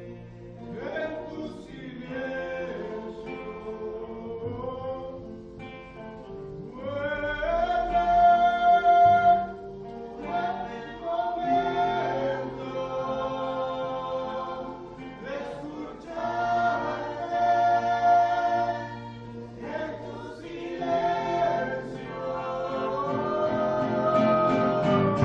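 Choir singing a slow song in long held notes over a steady low accompaniment.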